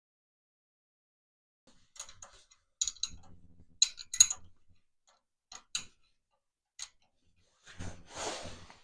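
Sharp metallic clinks and taps of tools and bolts as a tractor starter switch is bolted into place: a dozen or so irregular clicks, then a short rattling scrape near the end.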